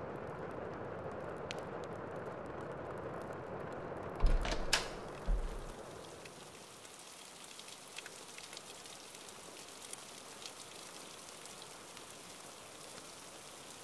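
Steady rain falling. About four seconds in, a door opens: a click and a low thump, then a second thump about a second later. After that the rain sounds lighter and brighter, with scattered drips.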